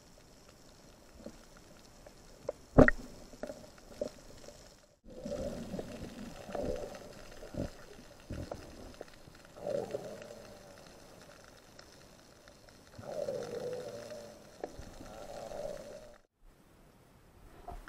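Muffled underwater noise heard through a submerged camera, swelling and fading several times, with one sharp knock about three seconds in.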